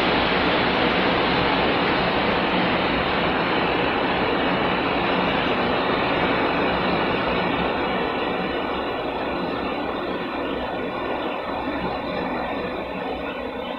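Hand-held electric drill running continuously, a steady rushing noise that grows slowly fainter over the last few seconds.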